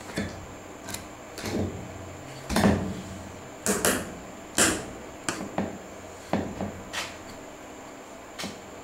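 Wooden snap mousetrap knocking and scraping on concrete as the mouse caught in it moves, about a dozen irregular knocks, the loudest in the middle.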